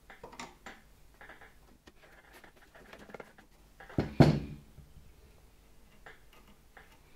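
Small clicks and scrapes of tools and small metal parts being handled while the capacitor's ground wire is fitted under a screw on the vacuum cleaner motor, with one louder knock about four seconds in.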